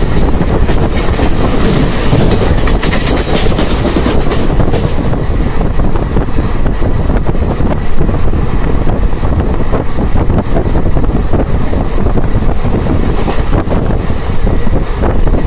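Moving passenger express train heard loudly from an open, barred coach window: a steady rush of rolling noise with a dense clatter of wheels on the track.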